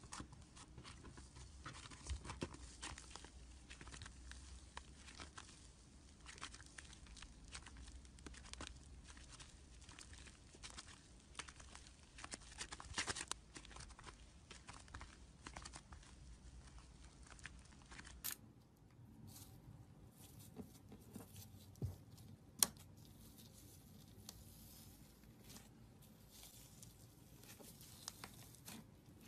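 Hands poking, squeezing and stretching slime: a steady run of small sticky clicks, pops and crackles, with a few louder snaps.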